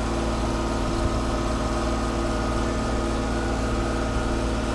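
Tire baler's engine and hydraulic piston pump running steadily, powering the compaction heads as they are raised after a compression stroke.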